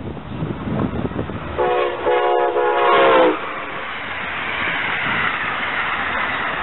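Amtrak ACS-64 electric locomotive sounding one chord blast on its horn as it passes, the pitch dropping near the end, followed by the steady rush of the passenger coaches going by at speed.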